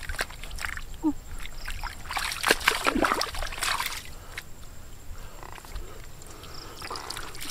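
Hands groping and scooping in shallow muddy water: irregular wet splashes and squelches, thickest from about two to four seconds in.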